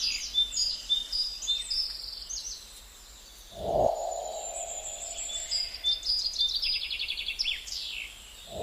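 Birds chirping and twittering over a steady background of outdoor noise. About three and a half seconds in, and again at the very end, a lower sound rises quickly and then holds as a fading tone.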